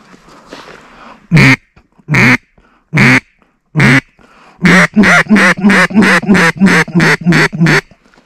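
Duck call blown close by, quacking: four single quacks spaced out, then a fast run of about a dozen quacks that stops abruptly.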